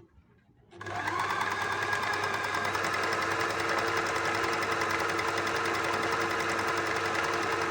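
Wertheim electric sewing machine starting up about a second in and running at a steady speed, sewing its special stitch pattern A as a test run.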